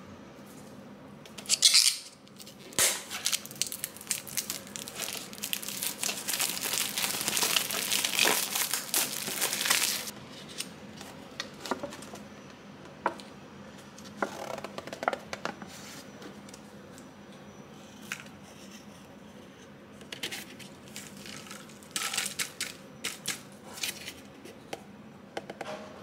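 Plastic shrink-wrap crinkling and tearing as it is stripped off a Nissin Cup Noodle cup, with a sharp rip about two seconds in and dense crackling for the next several seconds. After that come quieter, scattered crinkles, and near the end a short run of crinkling and tearing as the paper lid is peeled back.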